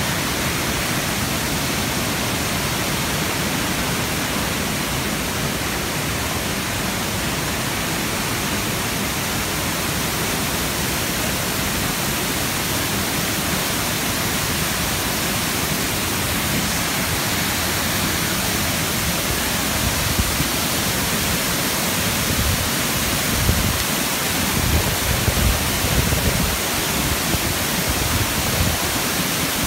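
Large waterfall in full flow, a loud, steady rush of falling water. Low rumbling buffets on the microphone come and go over the last several seconds.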